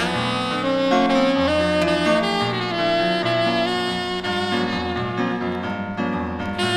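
Instrumental jazz-inflected music: a saxophone playing a line of long held notes over low bass notes that change about once a second.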